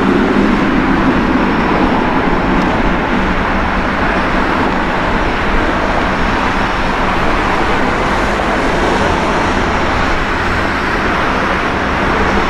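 Boeing 787-9 airliner's twin jet engines at takeoff power, a steady loud rumbling noise as the aircraft lifts off and climbs away.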